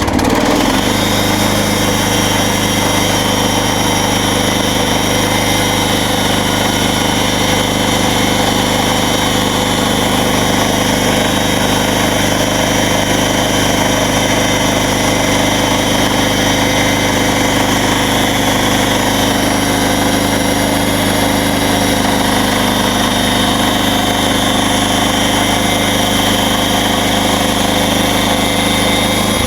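MechMaxx SM32 band sawmill's gasoline engine running steadily and driving the band blade. The blade runs smoothly with no grinding, which the owner credits to the mill now being in alignment.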